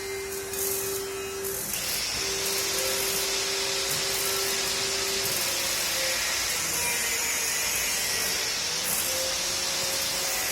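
Plasma CNC table's stepper motors whining as the gantry traces a cut path without cutting, the tone stopping, starting and shifting pitch as the axes change moves. A steady hiss comes in about two seconds in.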